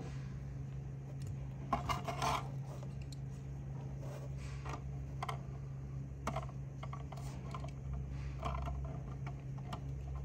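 Hands handling a small diecast model car: scattered light clicks, taps and scraping, over a steady low hum.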